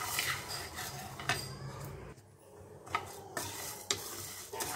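Coriander seeds being stirred with a wooden spatula in a dry non-stick frying pan, the seeds rattling and the spatula scraping across the pan in repeated strokes. There is a brief lull about halfway through.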